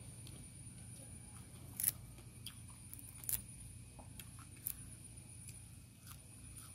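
Scattered small clicks and taps of eating by hand from a plastic tray: fingers and cutlery touching the tray and picking at raw vegetables, a few sharper clicks standing out, over a low steady hum.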